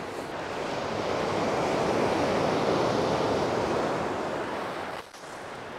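Surf on a shingle beach: a wave breaking and washing over the pebbles, swelling for a couple of seconds and then easing off. The wash drops suddenly to a quieter level near the end.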